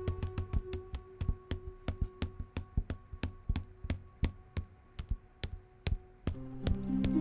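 Quick, irregular series of sharp taps and knocks, roughly three to five a second, over faint held music tones; fuller music with sustained notes comes in about six seconds in.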